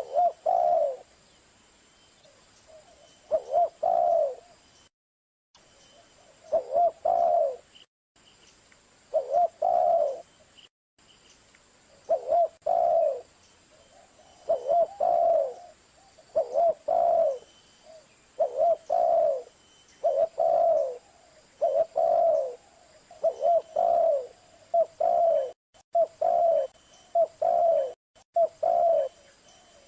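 Spotted dove (tekukur) cooing over and over, each phrase a short run of low, hollow coos. The phrases come about every two seconds at first and follow more quickly in the second half.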